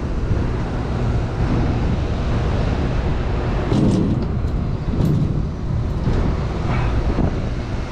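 Condenser fan motors on a large rooftop makeup air unit running steadily: a loud, even whooshing hum, with a few short louder sounds near the middle.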